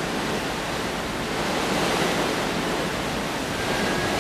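Steady rushing noise of wind and sea water, with wind buffeting the microphone. A faint, thin, steady high whistle comes in near the end.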